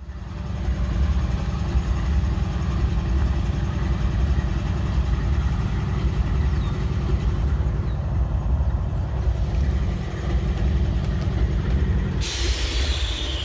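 Norfolk Southern diesel-electric locomotives idling with a steady low rumble; about twelve seconds in, a sudden loud hiss of compressed air is released as part of the engine note drops away.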